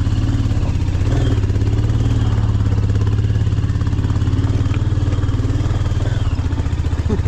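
Motorcycle engine running at low speed with a steady low pulsing beat as the bike is ridden slowly over a rough, rocky dirt track. The engine note lifts slightly about a second in and eases off near the end.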